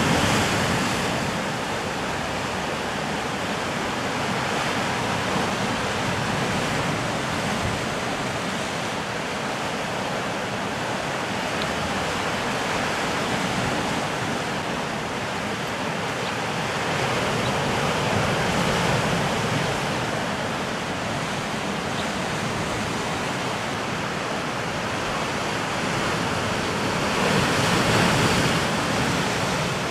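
Ocean surf breaking and washing against a rocky volcanic shoreline, a steady rushing wash that swells louder twice, about two-thirds of the way through and again near the end.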